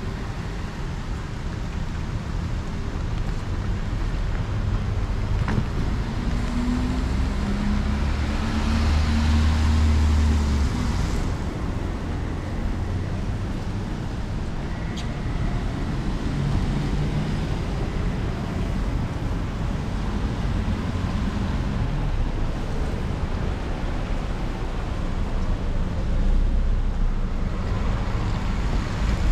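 Steady rain with traffic on wet roads. A vehicle passes close by about ten seconds in, its low engine hum and tyre hiss loudest then, and fainter passes follow later.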